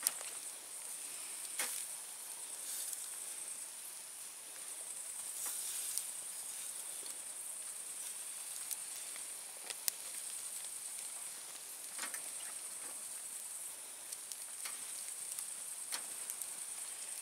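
Turkey cutlets sizzling on a small grill grate over a wood fire, with scattered crackles and clicks from the fire and the metal tongs.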